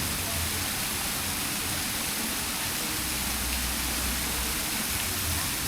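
Steady, even rushing noise with an uneven low rumble underneath.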